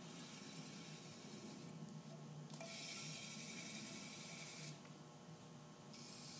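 Three stretches of high-pitched hiss, each about two seconds long, starting and stopping sharply with short pauses between, over a faint low hum.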